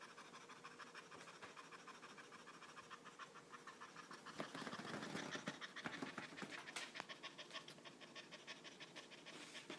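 Domestic cat panting with its mouth open: rapid, even, faint breaths. It is out of breath from hard play.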